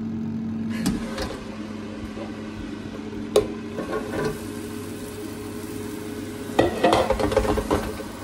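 Philips airfryer's steady fan hum falls away as its basket drawer is pulled out with a click about a second in. Raw, oiled fries are then tipped from a bowl and tumble and clatter into the mesh basket, loudest near the end.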